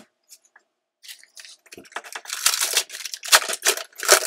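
Foil wrapper of a trading card pack crinkling as it is worked open by hand, then torn, with a couple of sharp rips near the end.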